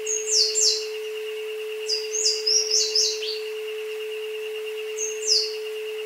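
Jungle birds calling in quick downward-sweeping chirps, in three bursts, over two electronic isochronic tones: a steady mid-pitched tone and a higher one that pulses.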